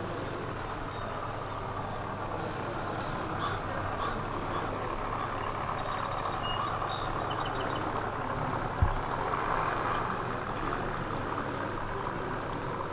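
Steady background hubbub of a busy exhibition hall, with a single low thump about nine seconds in.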